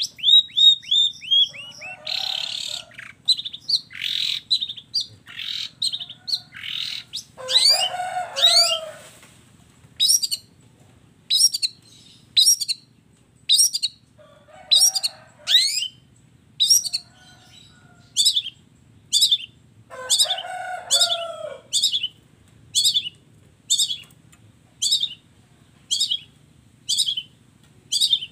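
Long-tailed shrike (cendet) singing a mimicry-filled song: varied sweeping phrases at first, then a long run of short sharp notes repeated about once a second, broken three times by harsh, lower chattering.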